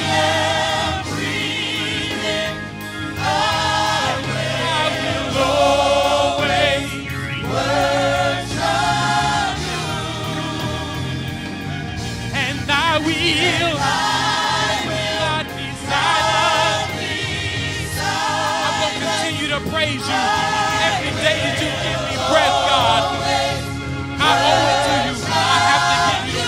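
Gospel worship team of men and women singing in harmony over instrumental backing, in held phrases with vibrato, each a second or two long with short breaks between.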